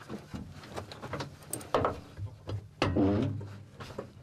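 Clicks and metallic clunks of controls and fittings being handled inside a T-64BV tank's crew compartment, with a louder clunk about three seconds in, over a low steady hum.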